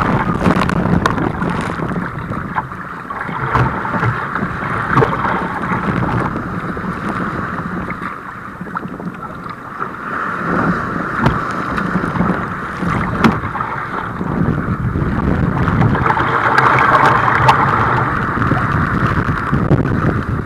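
Water rushing around a kayak in rough water, with wind buffeting the microphone. The sound surges and eases every few seconds and has a few short, sharp clicks.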